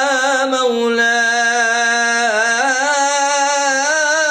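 A man singing an Islamic ibtihal with no accompaniment, drawing out the vowel of 'yā' in one long melismatic line with vibrato. The pitch steps up a little about halfway through.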